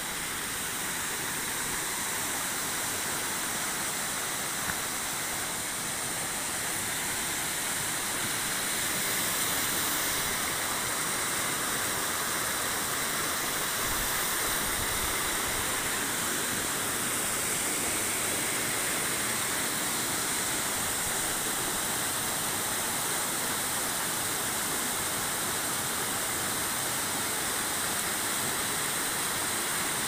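Steady rush of white water cascading over boulders in a rocky stream, getting slightly louder about a third of the way in.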